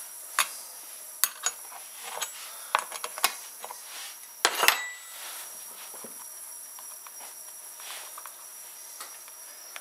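Metal clicks and clinks of a wrench, nuts and chain being handled while the side cover, bar and chain are taken off a Stihl 290 chainsaw, with a louder clatter about halfway through.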